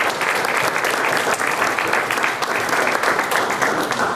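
Audience applauding, many hands clapping steadily, beginning to die away at the very end.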